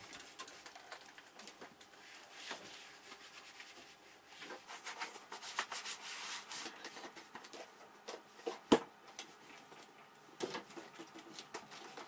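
Cloth wiping over a plastic container, with scattered rubbing, rustling and small knocks of plastic being handled, and one sharp click a little over two-thirds through.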